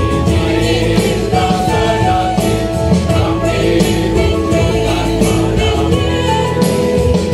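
A large parish choir of mixed men's and women's voices singing a hymn in parts, holding long notes, with instrumental accompaniment.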